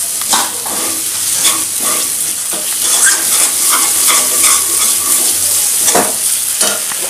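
Spice paste and chopped tomatoes sizzling steadily as they fry in a kadai, with a metal spatula stirring and scraping against the pan in repeated strokes.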